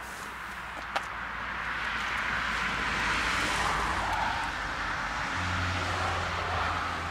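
Noise of a passing vehicle swelling over a few seconds and slowly easing off, with a single sharp click about a second in.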